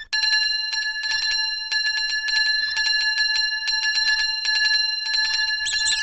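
A metal bell ringing continuously, struck rapidly over and over so it rings on steadily. A brief high squeaky sound joins it near the end.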